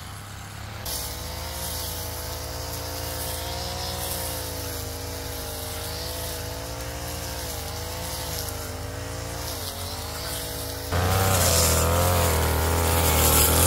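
Brush cutter engine running, its pitch wavering up and down as the throttle shifts. About eleven seconds in it turns suddenly louder and harsher.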